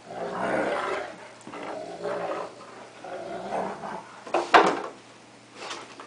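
Two dogs growling in rough play, a cocker spaniel and a wolf–Akita mix: fierce-sounding, but play, not a real fight. The growls come in several rough bouts, with a short, loud, sharp outburst about four and a half seconds in.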